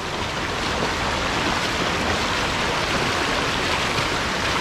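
River water flowing steadily over its bed, a constant even rush.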